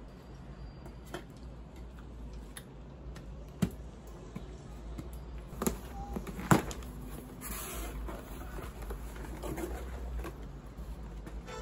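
Cardboard shipping box being opened by hand: packing tape slit with a box cutter, cardboard flaps rustling and scraping, and a few sharp knocks as the box is handled, the loudest about six and a half seconds in.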